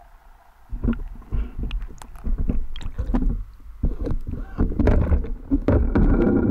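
Water sloshing, gurgling and knocking around an underwater camera as it is hauled up from the seabed, with irregular thumps that start about a second in and turn into dense splashing near the end as it breaks the surface.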